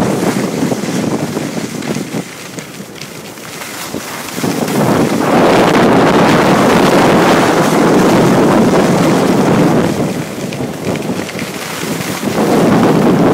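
Wind rushing and buffeting over a phone's microphone while skiing fast downhill, growing loud about four seconds in, easing for a moment near ten seconds and rising again near the end.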